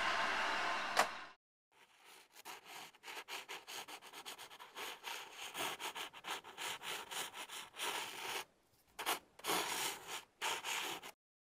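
Quick, scratchy strokes of drawing across paper, one after another with two short pauses near the end. Before them, a steady background noise cuts off about a second in, just after a sharp click.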